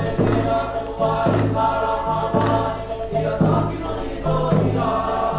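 Cook Islands string band: ukuleles and an acoustic guitar strummed under a group singing in harmony, with a large bass drum struck about once a second.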